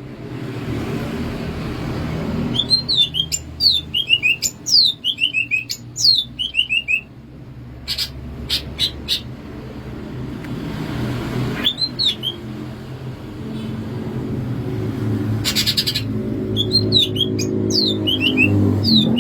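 Cucak ijo (Chloropsis leafbird) singing: runs of quick, downward-sliding whistled notes, one a few seconds in and another near the end, with a few sharp clicks in between.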